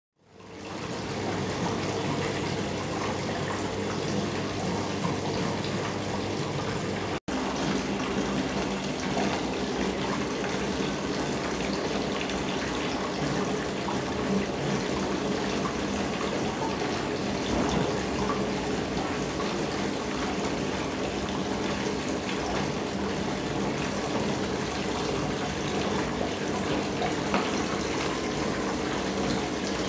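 Water from a small homemade rock fountain splashing and trickling steadily down its face into the pool at its base, with a steady low hum underneath. The sound breaks for an instant about seven seconds in.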